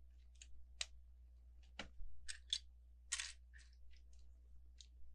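Plastic Lego pieces clicking and rattling as they are handled and pressed together: a string of small irregular clicks, with a short rustle about three seconds in.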